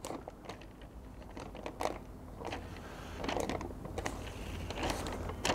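Brown paper pattern rustling and crinkling faintly as hands hold it and press it down against a metal panel, with scattered small clicks and crackles.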